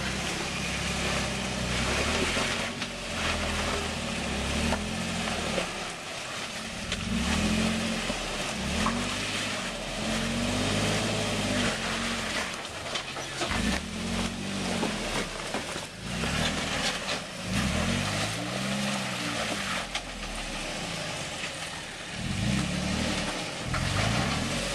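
Toyota Tacoma pickup's engine revving up and easing off over and over as the truck crawls up rock ledges, its pitch rising and falling every few seconds.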